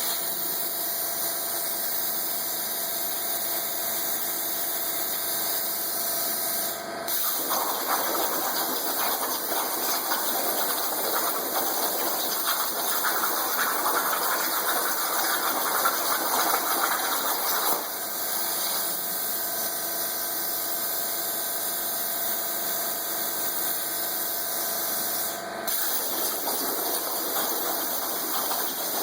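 Plasma cutter on a DIY CNC table cutting under water. A steady machine whine is broken by two spells of rushing hiss as the arc fires into the water: the first starts about seven seconds in and lasts about ten seconds, and the second starts near the end.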